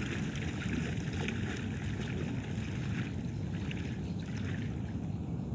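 Legs wading through shallow seawater with soft, irregular splashing, over a steady low wind rumble on the microphone.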